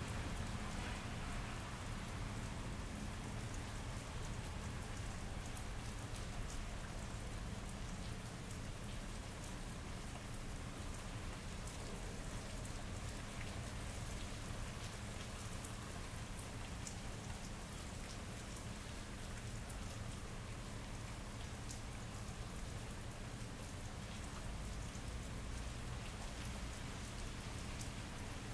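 Steady rain falling on pavement and hard surfaces, with scattered individual drops ticking through it and a steady low rumble underneath, recorded binaurally.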